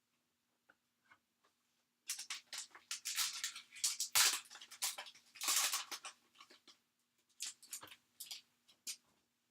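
Trading cards and pack wrapping being handled at close range: a run of rustling, sliding and crinkling noises that starts about two seconds in and is loudest in the middle.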